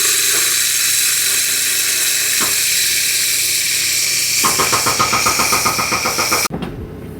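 Portable forced-air construction heater running, a steady loud rushing hiss, with a rapid flutter joining about four and a half seconds in. It cuts off suddenly near the end.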